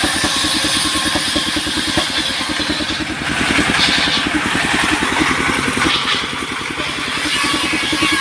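Engine of a sawmill machine running steadily with a fast, even pulse, with a brief rise in hiss a few seconds in.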